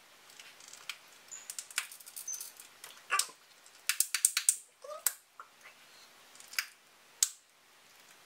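Plastic trigger spray bottle pumped over and over, giving irregular clicks and short sputtering hisses of spray, several in quick succession in the middle. The bottle is not spraying properly.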